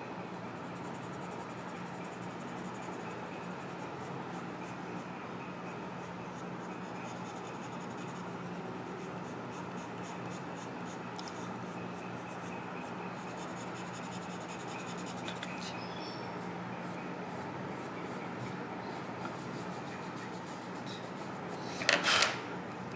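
Charcoal pencil rubbing and scratching across drawing paper in soft shading strokes, over a steady low hum. About a second before the end there is a brief, much louder noise.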